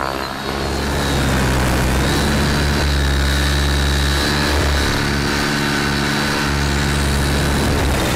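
Thunder Tiger e700 radio-control helicopter in flight: electric motor and rotor blades running steadily, with a high thin whine over a low blade hum. It comes up about a second in and then holds.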